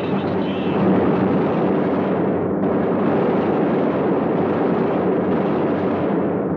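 Loud, continuous roar of a bomber's engines droning in flight, mixed with dense rattling machine-gun fire from the aircraft's gun positions.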